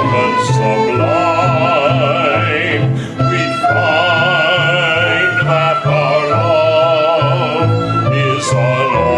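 A man singing a waltz with vibrato, accompanied live by flute, violins and keyboard over a steady, repeating bass pattern.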